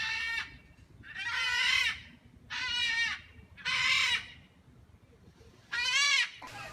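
An animal calling five times, each call short and wavering in pitch, with short pauses between them.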